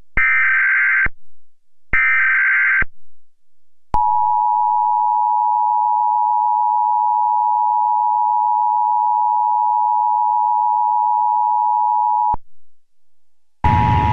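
Emergency Alert System broadcast: two roughly one-second bursts of warbling SAME header data tones, then, after a short gap, the two-tone EAS attention signal held steadily for about eight seconds before cutting off abruptly. It marks a nationwide live-code test of the alert system. A voice begins just before the end.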